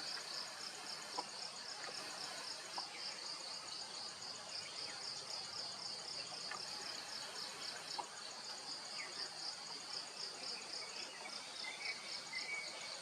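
Insects chirping steadily in a fast, high-pitched pulsing rhythm of about five pulses a second. A faint thin whistle comes in near the end.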